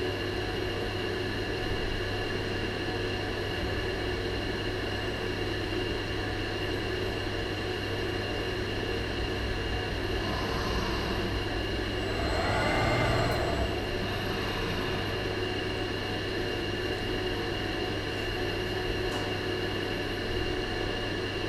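Steady hum of a Yaskawa welding robot and its positioner moving an excavator bucket, with several constant whining tones over a low electrical hum. A motor whine swells and falls away briefly a little past halfway.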